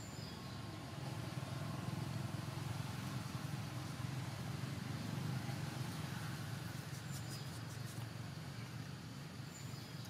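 Low engine rumble of a passing motor vehicle that swells about a second in and fades near the end, with faint high chirps of insects or birds over it.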